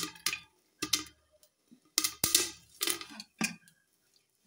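Popcorn kernels popping inside a closed aluminium pressure cooker with its whistle removed: irregular sharp pops, about eight of them, with short silences between.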